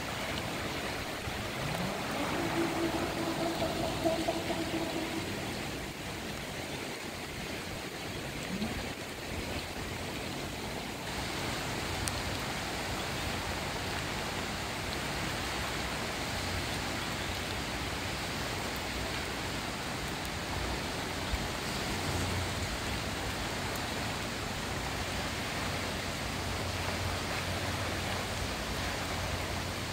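Floodwater in a swollen river rushing steadily, an even roar of water running high and fast after heavy storm rain.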